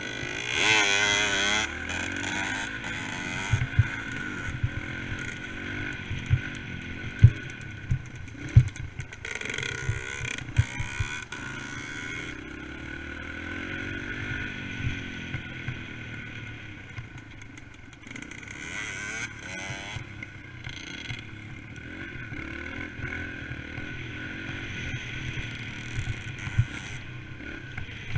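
Dirt bike engine running while being ridden, its revs rising and falling with the throttle. Several sharp knocks in the first half as the bike jolts over the rough, potholed road.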